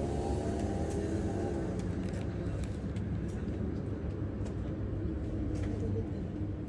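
Motor vehicle engine running with a steady low rumble, its pitch shifting in the first second.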